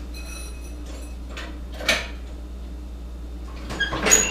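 A few metallic clanks and clicks from a hydraulic floor jack being worked under the front of a riding lawn mower: one knock about two seconds in, then a quick run of clicks with a brief metallic ring near the end.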